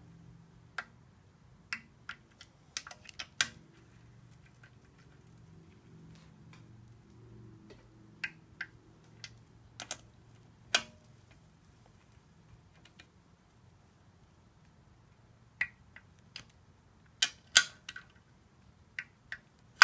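Scattered sharp metallic clicks from a hand ratchet and socket running down the oil pan bolts on a 42RE automatic transmission, coming in small clusters with gaps between them. A faint low hum runs underneath.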